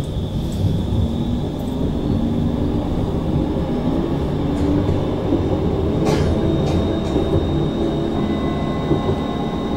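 Bombardier Flexity Outlook C low-floor tram running between stops, heard on board: a steady rumble of wheels on rail with the whining tones of the electric drive, and a single sharp click about six seconds in.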